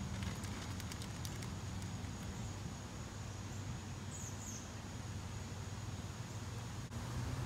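Outdoor yard ambience: a steady high insect drone over a low rumble, a few faint ticks in the first second or so, and a short bird chirp about four seconds in.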